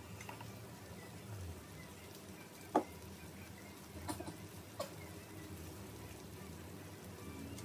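Marinated pork belly slices sizzling faintly on an electric grill pan, with a few sharp clicks about three, four and five seconds in.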